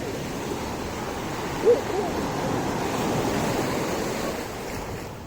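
Sea surf washing onto the beach, a steady rush that swells in the middle. About a second and a half in, a short loud hoot-like call stands out above it, with faint voices in the background.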